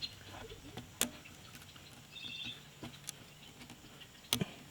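Faint, sparse clicks and taps of a hand tool working the set screws on a Wood-Mizer sawmill's hydraulic control levers as they are loosened, the sharpest just after four seconds in. A brief high chirp sounds about two seconds in.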